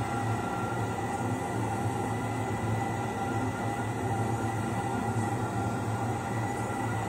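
A steady, unchanging hum made of several fixed tones at one level throughout.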